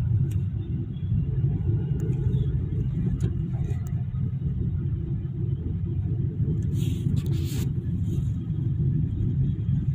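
Steady low rumble of a car driving in slow city traffic, with a short hiss about seven seconds in.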